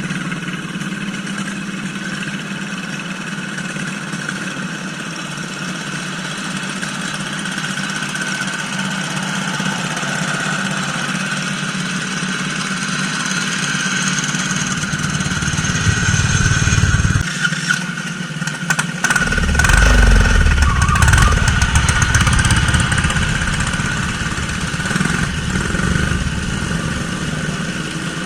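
Riding-lawn-mower engine on a mud mower running steadily. It gets louder a little past halfway, then a short run of knocks and clatter with a heavy low rumble comes about two-thirds through before it settles back.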